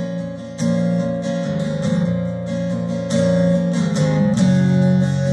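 Instrumental passage of a song: acoustic guitar strumming chords, with no singing.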